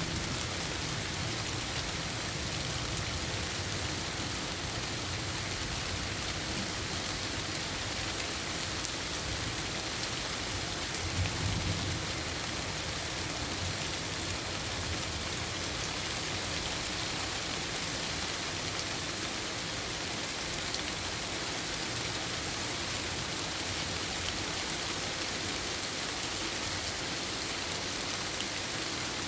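Steady rain falling, an even hiss of drops throughout, with a brief low rumble about eleven seconds in.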